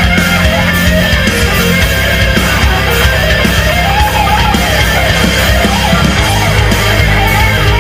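Loud heavy rock music with guitar.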